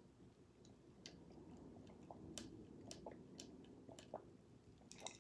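Faint close-up chewing: soft wet mouth clicks and smacks at irregular moments over a low hum.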